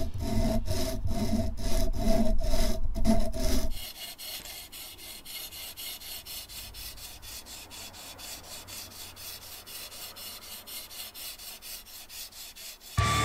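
Sharpening stone on a TSPROF guided-rod sharpener stroking back and forth along a Cold Steel kukri machete's edge with a rasping sound. For about the first four seconds the strokes are louder with a ringing note from the blade; after that they are quieter and come as a fast, even run of short strokes.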